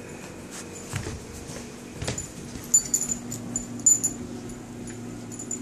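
A puppy's metal collar tags jingling in short clinks as it moves about, loudest between about 3 and 4 seconds in, with a couple of knocks before that.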